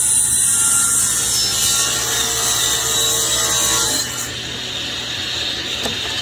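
Table saw ripping the edge off a board: a loud, steady cutting hiss that stops about four seconds in as the cut finishes, leaving the saw running with a lower hum.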